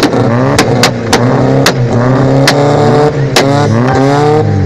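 Volkswagen Mk2's engine revved hard again and again through its exhaust, the revs climbing and dropping. Sharp exhaust bangs go off every half second to a second, about seven in all.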